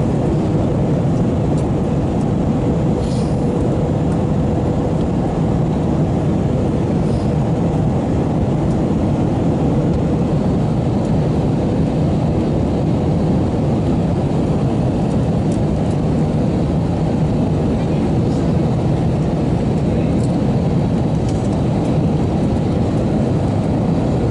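Steady roar of an Airbus A321's engines and rushing air, heard inside the cabin at a window seat during the approach with flaps extended. A faint steady hum sits in the noise through the first half.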